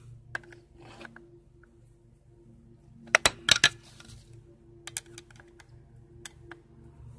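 Small metallic clicks and taps of a flathead screwdriver against a string trimmer's carburetor adjustment screws, with a sharp clatter of about four clicks just after three seconds in and a few lighter ticks later.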